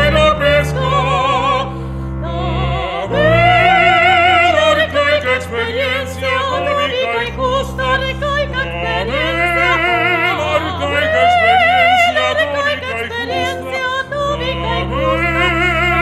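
Chamber music for voice and ensemble: a soprano sings long phrases with wide vibrato over steadily held low notes.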